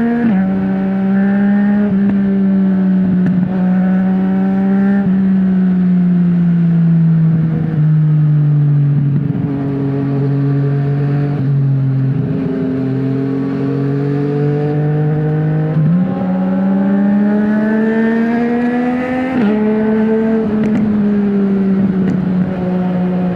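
Yamaha MT-09 Gen 2's three-cylinder engine through a full Akrapovic exhaust with the dB killer removed, ridden along at steady throttle. The exhaust note sinks and climbs with road speed, stepping abruptly at several gear changes, including a clear shift near the end after a climb in revs.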